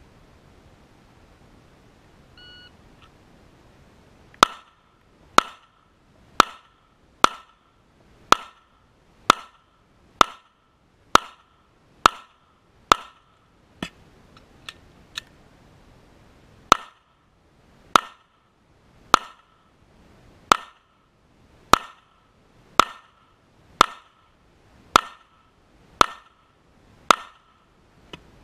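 A shot-timer beep, then a Glock 17 9mm pistol firing ten shots at about one a second. A gap of nearly four seconds with two light clicks follows, a slide-lock reload, then ten more shots at the same steady pace.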